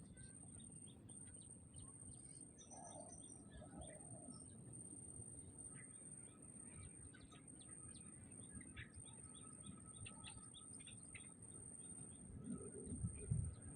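Faint songbirds chirping: many short, high calls scattered through, with a brief higher trill about three seconds in, over a low rumbling background and a steady thin high tone.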